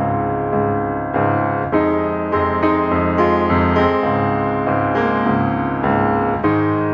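Background piano music, with notes struck at an even, unhurried pace.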